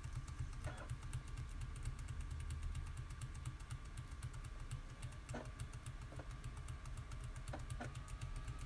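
The F2 key on a netbook keyboard tapped quickly and repeatedly during power-up to get into the BIOS setup: a fast, even train of faint key clicks, with a few louder knocks among them.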